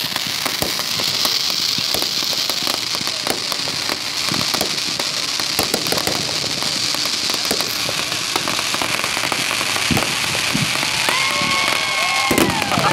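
Aerial fireworks display: dense rapid crackling and popping over a steady hiss, with a few louder bangs about ten and twelve seconds in.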